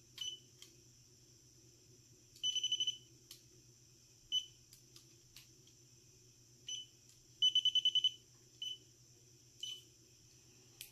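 Handheld Gardner Bender holiday light tester beeping as it checks mini light bulbs along a Christmas light string: short high-pitched beeps, single ones scattered through, and twice a quick run of rapid beeps, about three seconds in and again near eight seconds. A faint steady low hum lies underneath.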